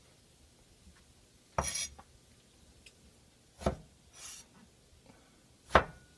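Kitchen knife chopping eggplant pieces on a wooden cutting board: three chops about two seconds apart. Each is a sharp knock with a short hiss just after it.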